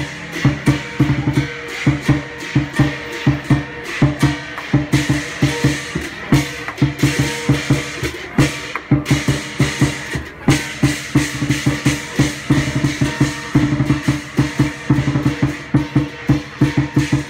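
Chinese lion dance percussion: a large lion drum beaten in fast, driving strokes with cymbals clashing along in rhythm.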